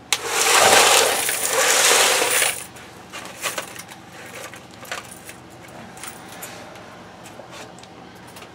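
A heavy pile of quarters shifting and jingling together in an oil drain pan as it is lifted, loudest for the first two and a half seconds. After that come scattered light clinks and knocks.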